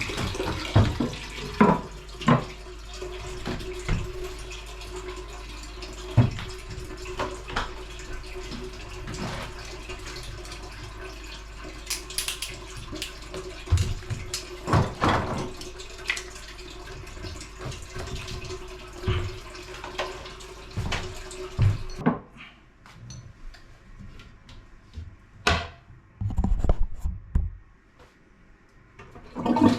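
Toilet cistern refilling: water hissing in through the fill valve with a steady hum, cutting off suddenly about three-quarters of the way through as the cistern fills, with scattered knocks and clunks.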